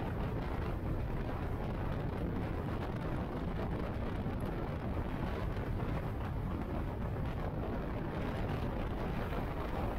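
Motorcycle cruising at a steady highway speed, heard from the rider's seat: a constant rush of wind and road noise mixed with the engine's drone.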